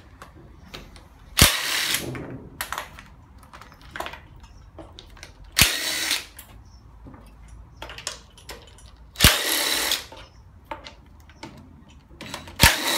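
Cordless power driver with a socket extension spinning out bolts on an engine in four short bursts, about every three to four seconds, each starting with a sharp click. Faint clicks and clinks of the socket and bolts come between the bursts.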